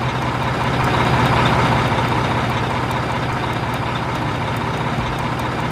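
Diesel engine of a Liebherr two-axle mobile crane running steadily while the crane stands on its outriggers, a constant low hum.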